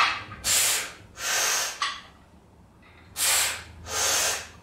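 A man breathing hard in and out through the effort of seated dumbbell overhead presses: a pair of breaths in the first two seconds and another pair near the end.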